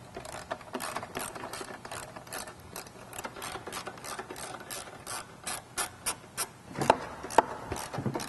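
Hand socket ratchet with an 8mm socket clicking in quick repeated strokes, about three or four clicks a second, as it backs out the screws that hold the plastic wheel-well trim. Two louder knocks come near the end.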